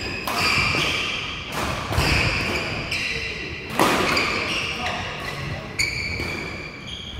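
Badminton rally: rackets striking a shuttlecock about four times, roughly every two seconds, with court shoes squeaking on the floor between strikes.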